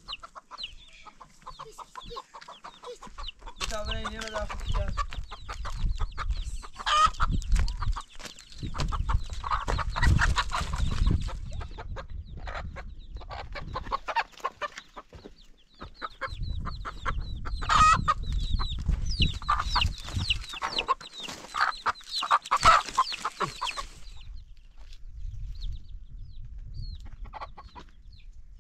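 Chickens clucking and calling over and over, with a low rumble coming and going beneath them.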